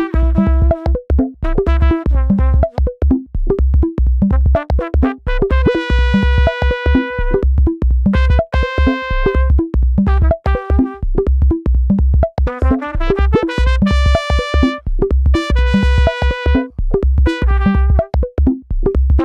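Background music: a synthesizer keyboard melody of quick, changing notes, with rising runs, over a steady low beat.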